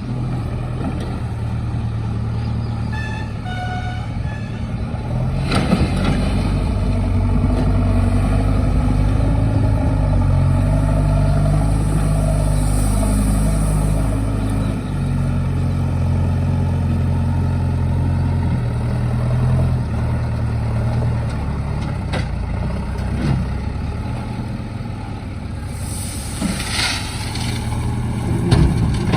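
Heavy diesel engine of a backhoe loader or dump truck running steadily, revving up in steps and settling back as it works. A few short beeps come early on, and a brief hiss near the end.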